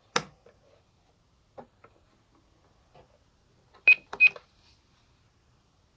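GE Simon XT alarm panel keypad being pressed: a sharp button click at the start and a few faint taps, then two short beeping key presses about a third of a second apart, a little under four seconds in.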